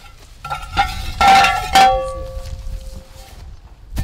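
Several metal clanks and knocks on a steel weapon launcher, each leaving a ringing tone that dies away over a second or so. A single sharp crack right at the end.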